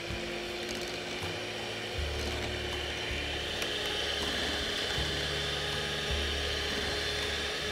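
Electric hand mixer running steadily at a constant whine, its twin metal beaters whisking fresh cream and sugar in a glass bowl to dissolve the sugar.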